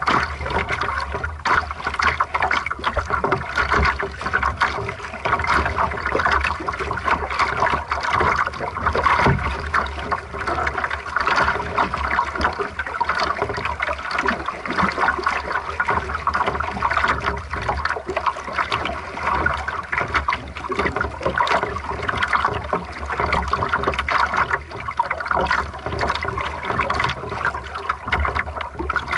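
Water sloshing and splashing against the hull of a small sailing dinghy under way, a steady unbroken wash.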